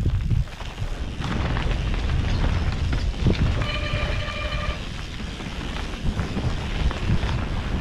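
Mountain bike descending a dirt forest singletrack, heard from a helmet-mounted camera: wind buffeting the microphone over a constant rumble and rattle of tyres and frame on the rough trail. A brief steady squeal sounds for about a second around the middle.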